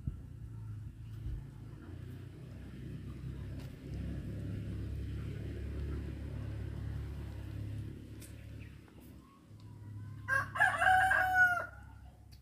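A rooster crowing once near the end, a single loud call of about a second and a half, over a low steady rumble.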